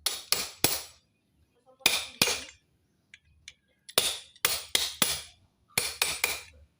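Hand tool knocking sharply on metal engine parts, about a dozen strikes in quick groups of two to four, each with a short ring.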